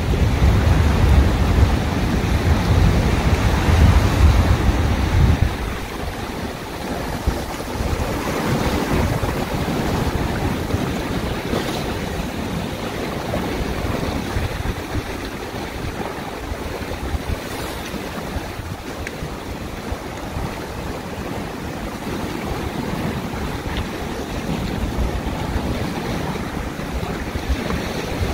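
Small sea waves washing and breaking around rocks, with wind buffeting the microphone, heaviest for the first five seconds or so.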